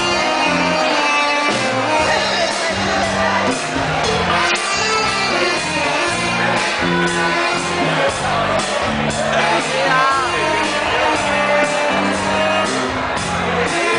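Live dance music from a keyboard and saxophone, with a bass line and a steady beat, and a man singing and shouting over it.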